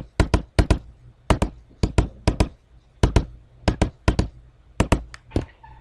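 About twenty sharp clicks, many in close pairs, in irregular runs as the keys of an on-screen TI-83 Plus calculator are pressed one after another to enter a multiplication.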